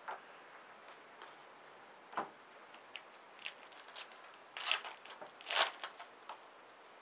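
A trading-card pack being opened by hand, its wrapper crinkling and the cards clicking and sliding against each other. The sounds are short, scattered rustles, loudest twice, about four and a half and five and a half seconds in.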